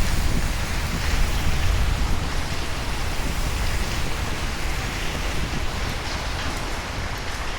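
Steady rain with a low rumble of thunder slowly dying away.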